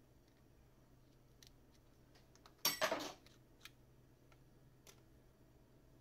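Metal SIM card tray of a Lenovo S5 K520 smartphone being popped out with an ejector pin and pulled free: a few faint ticks and one short, louder metallic clatter a little under halfway through.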